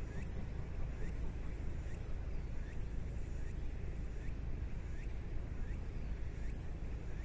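C11 190, a C11-class steam tank locomotive, working its train up a grade. Its exhaust beats sound as a regular chuff about every 0.8 s over a steady low rumble.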